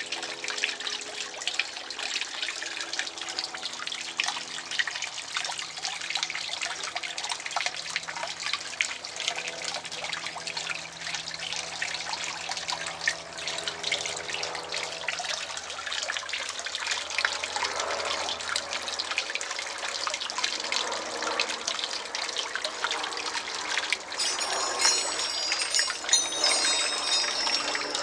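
Water trickling and splashing steadily in a garden fish pond, a dense patter of small splashes that gets louder for the last few seconds.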